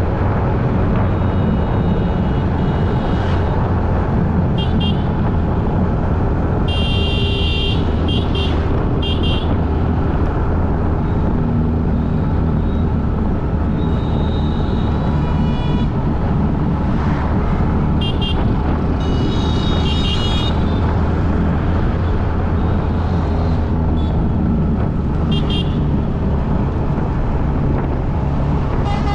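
Steady, loud low rumble of a motor vehicle or road traffic, with several short high-pitched toots along the way.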